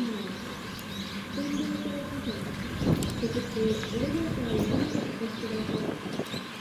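Pigeons or doves cooing in repeated low phrases, with small birds chirping thinly over them and a single sharp knock about halfway through.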